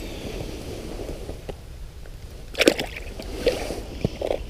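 A smallmouth bass let go back down an ice-fishing hole: a splash of water about two and a half seconds in, followed by a couple of smaller sloshes.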